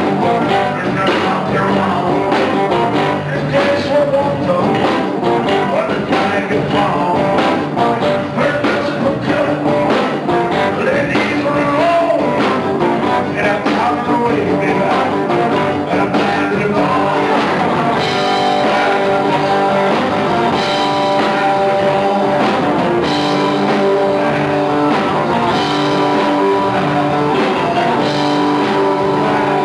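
Live rock band playing loud amplified electric guitars and bass over a drum kit, with a male singer.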